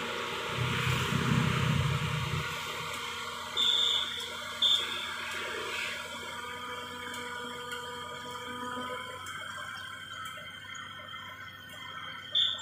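Hydraulic excavator with a pile-driving attachment running. Its engine is loudest for the first couple of seconds, then a steady whine holds until about nine seconds in. Three short high-pitched tones sound, two close together near four seconds and one at the end.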